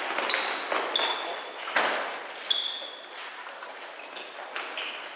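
Sports shoes squeaking on a wooden gym floor and a futsal ball being kicked and bouncing, echoing in the hall: a few short high squeaks in the first three seconds and a couple of sharp knocks near the middle.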